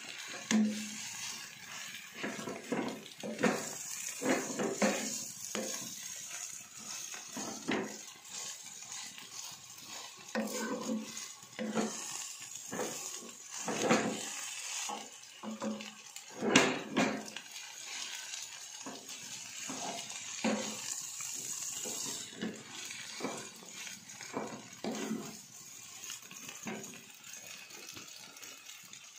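Wooden spatula scraping and knocking against a granite-coated non-stick pan at uneven intervals as rice vermicelli and vegetables are stir-fried, one knock louder about two-thirds of the way through. A steady faint sizzle of frying runs underneath.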